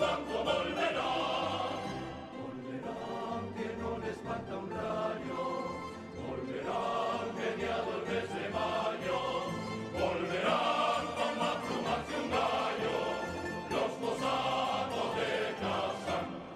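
Canarian rondalla performing a pasacalle: a large male choir singing together over plucked string accompaniment.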